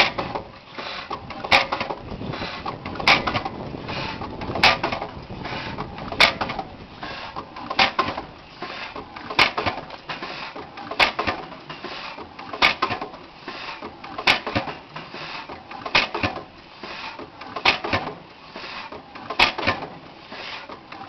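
6 HP International Harvester Mogul hit-and-miss gas engine running, firing with a sharp bang about every second and a half and coasting between fires.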